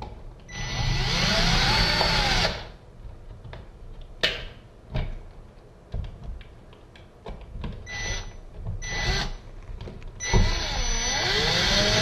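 Cordless drill-driver driving the mounting screws of a GFCI receptacle into a plastic wall box. It runs for about two seconds near the start, gives a few short bursts and knocks in the middle, and runs again near the end, its whine rising and falling in pitch.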